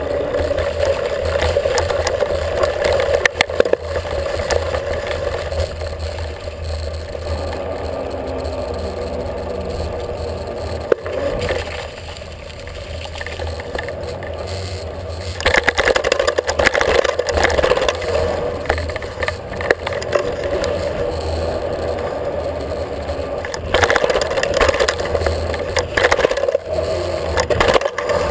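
Wheels rolling over concrete pavement, heard through a camera mounted on the moving ride: a steady rolling rumble with scraping and rattling. The rattling gets louder and rougher for a few seconds about halfway through and again near the end.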